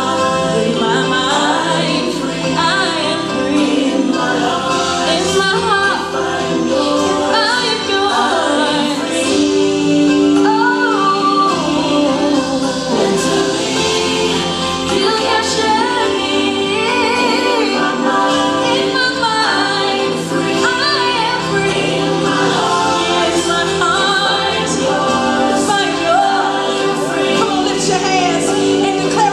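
Gospel song with female lead and choir voices singing over a steady accompaniment.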